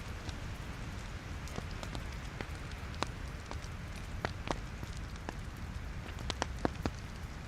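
Wood logs burning in a fireplace, crackling: a steady low rumble of flames with scattered sharp pops, several of the louder pops coming in the second half.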